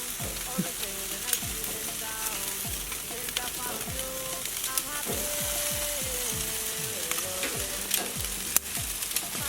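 Meat sizzling steadily on a barbecue grill, with music playing in the background.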